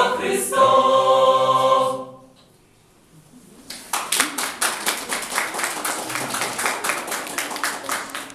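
Mixed choir singing a carol a cappella, holding a final chord that cuts off about two seconds in. After a short hush, audience applause starts about four seconds in.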